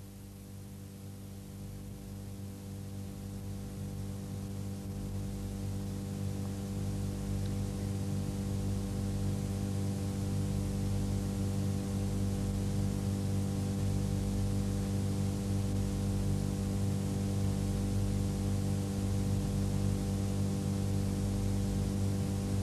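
Steady electrical mains hum, a low buzz with many even overtones, growing louder over the first ten seconds and then holding level.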